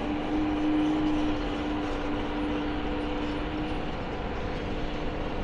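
A high-reach demolition excavator's diesel engine running steadily, with a steady hum over it that stops about four seconds in.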